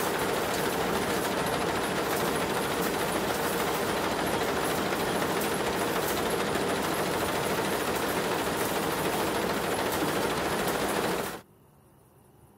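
Wire mill machinery running with a loud, fast, steady clatter, cutting off suddenly about eleven seconds in.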